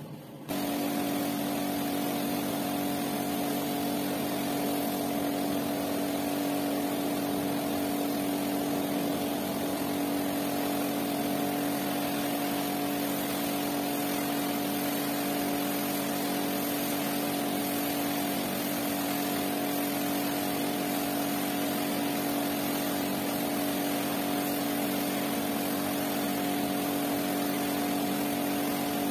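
Electric pressure washer starting about half a second in and running steadily: a motor-and-pump hum under the hiss of the water jet rinsing soap foam out of a rug.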